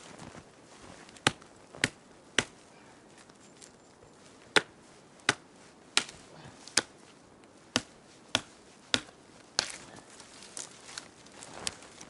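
Branches being chopped off a fallen tree: about eleven sharp chops, three close together, a short pause, then eight more at a steady pace, stopping about ten seconds in. Softer rustling of branches follows.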